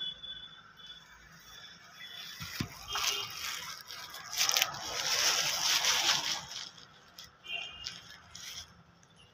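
A rustling, scraping noise that swells from about three seconds in and fades again near seven seconds, with a few faint, high chirps from small birds near the start and about eight seconds in. The peacock is not calling.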